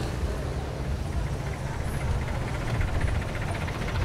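Steady roadside traffic rumble and street noise, with no distinct single event standing out.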